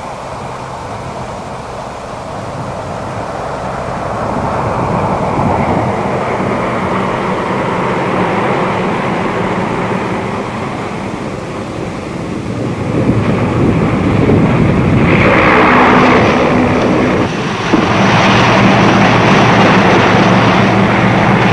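Four-engine turboprop of a ski-equipped C-130 Hercules running on final approach to a snow skiway, a steady drone with a rush of noise growing louder. The noise peaks in a strong rush about 15 seconds in, dips briefly near 17 seconds, then settles into a loud, steady drone.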